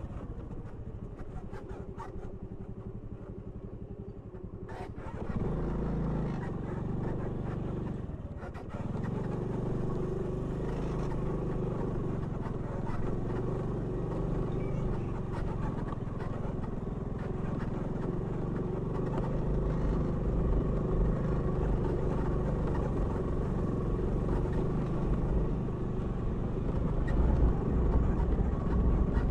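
Motor scooter engine running under load on a steep, rough dirt track. It gets louder about five seconds in, dips briefly a few seconds later, then holds steady. A few sharp knocks come from the bumpy ground, and a heavier low rumble builds over the last several seconds.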